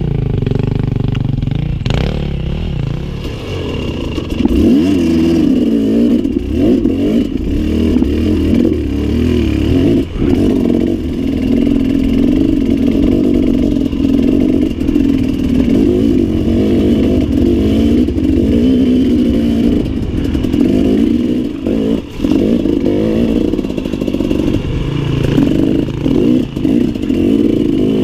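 Two-stroke 2017 KTM 300 EXC enduro motorcycle heard from the rider's seat, its engine revving up and down continuously as it rides over rough trail, with occasional clatter. The throttle shuts off briefly about ten seconds in and again about twenty-two seconds in.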